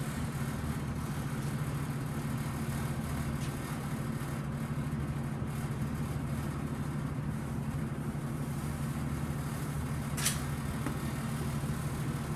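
Steady low hum of a running machine, with a single short click about ten seconds in.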